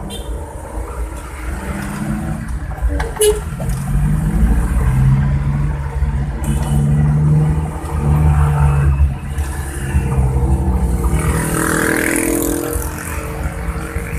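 Suzuki Carry engine and exhaust running under load with a deep, snoring, bus-like drone. The pitch shifts up and down as it revs, with brief lulls around six and nine seconds in.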